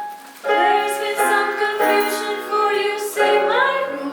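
Youth choir singing a cappella, several voices holding sustained chords that change every half second or so, after a short breath near the start.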